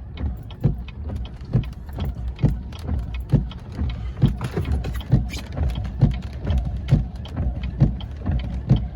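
Inside a vehicle cab, a regular knocking comes about once a second, with lighter ticks between the knocks. It sits over a steady low rumble of wind and engine.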